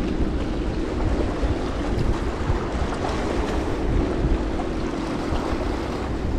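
Wind buffeting the microphone, a steady low rumble, over small waves washing against the rocks of the shoreline.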